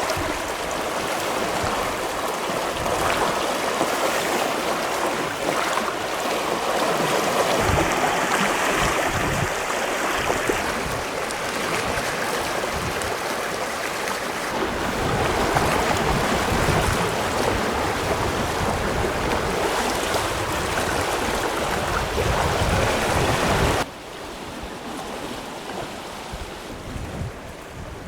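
Steady rushing water of the Tagus River at the Belver dam, with gusts of wind buffeting the microphone. About 24 s in the water sound drops abruptly to a much quieter level.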